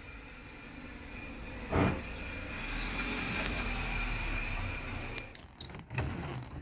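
A car engine running close by, with a steady high whine over it, that stops a little after five seconds in. There is a knock about two seconds in and a couple of sharp knocks near the end.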